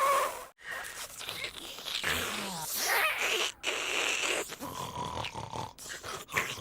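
Cartoon vacuum-cleaner character's sound effects: a run of short noisy sucking and snuffling noises, cut one after another, with brief breaks about half a second and three and a half seconds in.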